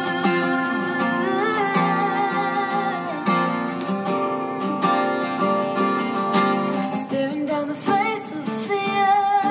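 Steel-string acoustic guitar strumming chords, with a woman singing over it in places.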